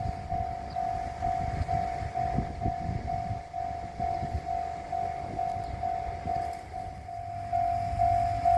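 Japanese level-crossing warning bell ringing in a steady repeating ding, about two a second, over the low rumble of a JR train running past.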